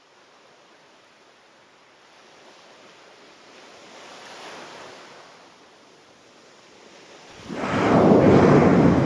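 Ocean surf: a rushing of water that swells gently about four seconds in, then surges loudly for about two seconds near the end.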